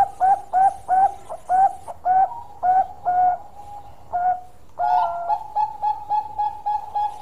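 Bangkok-type zebra dove (perkutut) singing: a run of short coo notes that flick upward, about three a second, breaking off briefly past the middle, then a quicker run of even coos from about five seconds in.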